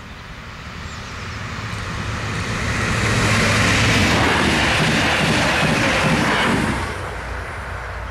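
Electric multiple-unit passenger train passing close by on the rails. The rumble and hiss of wheels on track build up as it approaches, stay loudest for a few seconds while the cars go by, then drop off sharply as the last car passes.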